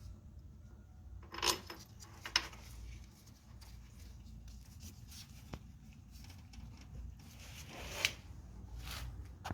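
Hand tools and metal parts being handled: a few scattered clinks and scrapes, the loudest about one and a half, two and a half and eight seconds in, over a low steady rumble.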